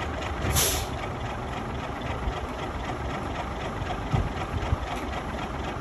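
A 1961 lattice-boom crane's engine idling steadily while the crane holds a boat suspended on its hook, with a brief hiss about half a second in.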